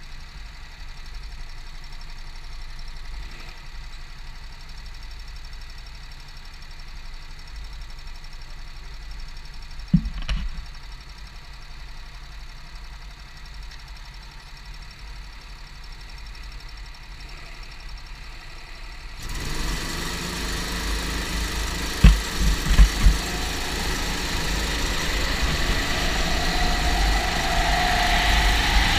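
Go-kart engine idling with a low, steady rumble and one knock. About two-thirds of the way through it turns suddenly louder and fuller, with a quick cluster of sharp knocks, and near the end the engine note rises as the kart accelerates.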